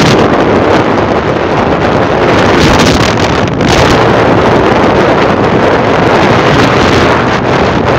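Loud, steady wind noise buffeting the microphone while travelling at road speed, with the rushing noise of a moving vehicle underneath.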